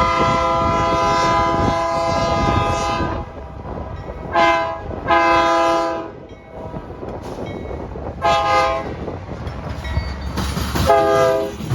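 Locomotive air horn sounding a chord: one long blast of about three seconds, then four short blasts over the next eight seconds, over the low rumble of the passing train.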